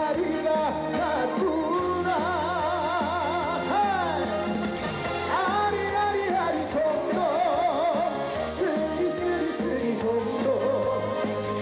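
Live Korean trot music: a melody with wide vibrato over a backing band with a steady bass.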